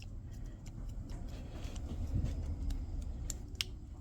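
Sharp clicks and light taps from working at a stuck part in a small engine's carburetor, which won't come out, over a low rumble that swells about halfway through.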